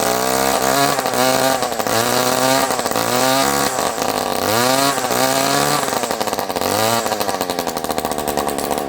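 Stihl string trimmer engine running and revved up and down about once a second, then held on a steadier, rougher note near the end. It is really loud, with its muffler rattling around loose where it has come off the exhaust.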